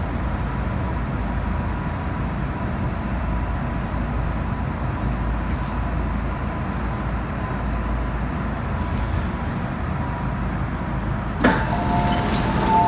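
MTR M-Train (Island Line I-Stock) pulling into a station and slowing to a stop: steady, very noisy running sound with a thin whine. Near the end there is a sharp clunk as the doors open, followed by a couple of steady tones.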